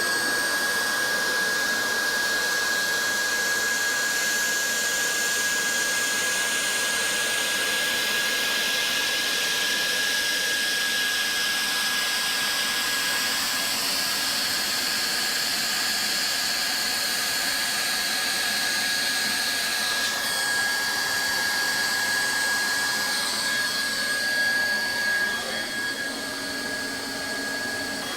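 Handheld hot-air plastic welding gun (Leister Triac) running, its blower giving a steady rush of hot air with a thin constant whine while welding rod is melted into a vinyl floor seam. The level wavers and falls off slightly in the last few seconds.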